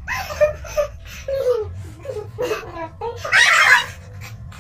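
Two girls laughing hard in short broken bursts, one with a marshmallow in her mouth; the loudest burst of laughter comes about three and a half seconds in.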